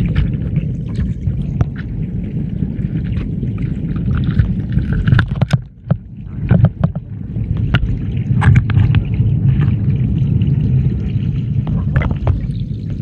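Muffled underwater rush of a shallow stream as heard by a submerged camera, a dense low noise with scattered sharp clicks and knocks. It dips briefly about six seconds in.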